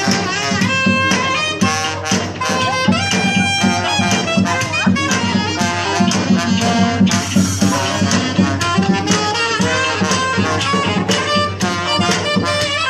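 Street band playing festive music live: saxophone and trumpet carry the tune over a steady bass drum beat.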